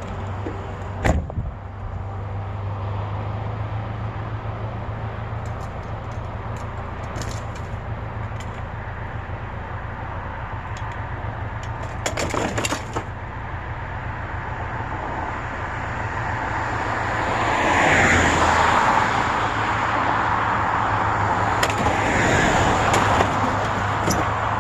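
A truck driving, its engine and road noise heard from inside the cab as a steady low hum, with a few sharp knocks or rattles near the start and about halfway; the noise grows louder about two-thirds of the way through.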